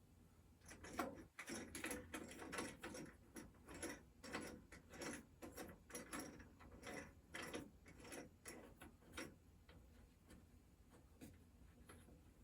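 Faint, irregular clicks and light knocks of clamps and wooden blocks being handled and fitted, two or three a second, thinning out near the end.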